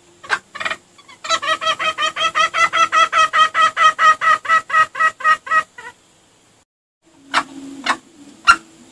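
Junglefowl clucking in a rapid, even run of about five clucks a second for some four seconds, after a few short sharp notes; it is a call played to lure wild junglefowl. A few more sharp clicks and a lower held tone come near the end.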